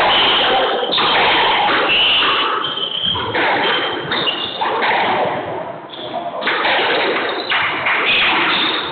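Squash rally: the ball knocks sharply and repeatedly off racket and walls, with rubber-soled court shoes squeaking on the hardwood floor.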